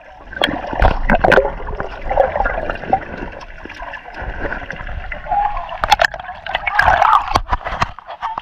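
Water gurgling and sloshing around a camera held just under the surface of shallow sea water, with irregular sharp splashes and crackles, busiest about six to seven seconds in.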